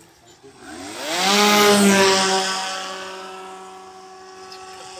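Three-phase electric motor and 18-inch propeller of a large radio-controlled model airplane powering back up: a buzzing drone rises in pitch for about half a second, then holds one steady pitch. It is loudest, with a strong rush of propeller wash, between about one and two seconds in, then fades.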